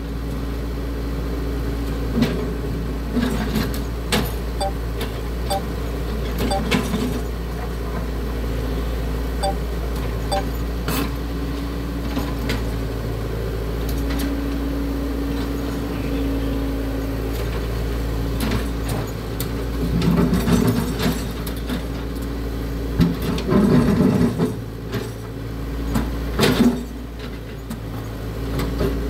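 Caterpillar excavator's diesel engine running steadily, with scattered knocks and clanks as the machine works fence concrete, busier and louder in the last third.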